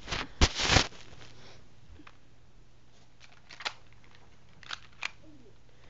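Scraping and rattling of a cheap spring-powered BB gun being worked to cock it: a few loud handling sounds in the first second, then several faint plastic clicks spread out over the next few seconds.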